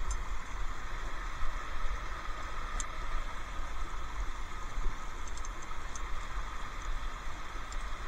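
Steady rush of a waterfall with a low rumble, and a few faint short ticks.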